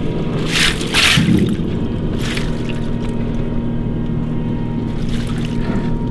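Boat engine idling steadily, with splashing water about half a second to a second in and again near two seconds.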